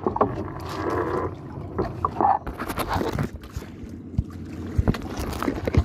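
Knocks and rubbing from a fishing line being hauled in by hand over the gunwale of a wooden boat as a speared fish pulls against it, with wind on the microphone.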